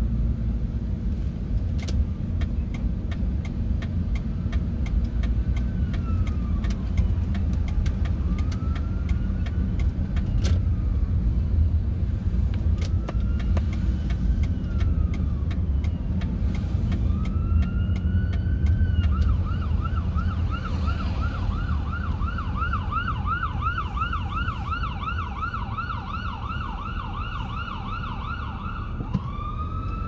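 Emergency vehicle siren heard from inside a moving car over steady engine and road rumble: a slow rising-and-falling wail every few seconds, switching about two-thirds of the way through to a fast yelp of about three cycles a second, then back to a wail at the end.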